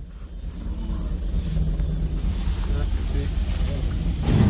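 A cricket chirping in an even high-pitched pulse, about three chirps a second, over a steady low rumble, with a brief louder bump near the end.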